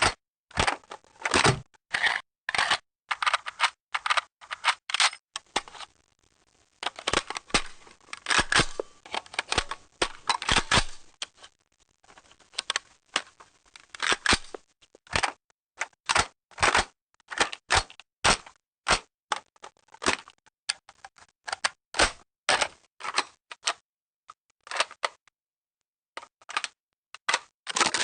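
A long run of short, sharp sound effects (clicks, snaps and cracks) following one another with brief gaps, thickest about a third of the way in.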